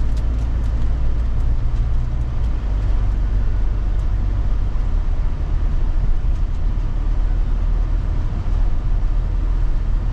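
Steady low rumble of a vehicle driving, heard from inside the cabin: road and engine noise.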